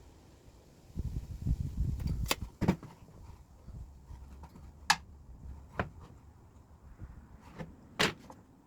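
Wooden boards being handled and fitted together on a workbench: a short stretch of shuffling and rubbing, then a string of sharp, separate clicks and knocks, the loudest near the middle and near the end.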